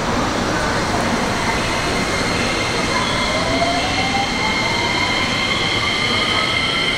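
JR West 225-series electric train moving off along the platform, with wheel and rail noise and steady high tones. About three seconds in, the inverter-driven traction motors start a whine that climbs steadily in pitch as the train gathers speed.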